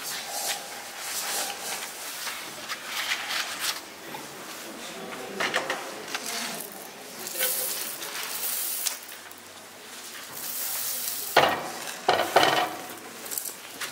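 Hands rustling and crumpling a cotton cloth and papers, in irregular bursts; near the end a hand stirs loose grain, with a hissing patter and two sharp clatters.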